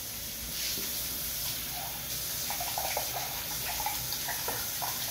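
Pot of creamy mushroom and spinach liquid simmering on the stove: a steady watery hiss, with small irregular bubbling pops in the second half.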